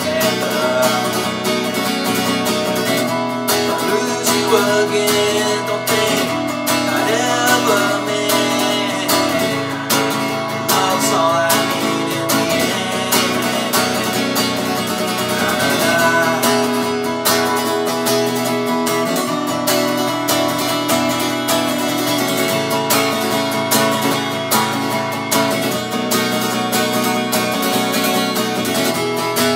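Acoustic guitar played in steady chords, with a man singing over it in places.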